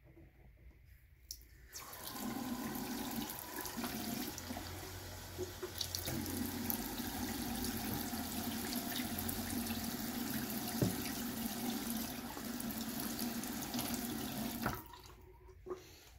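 Bathroom sink faucet running to fill a collapsible Sawyer squeeze pouch, the water splashing into the basin. The tap comes on about two seconds in, runs steadily, and is shut off near the end.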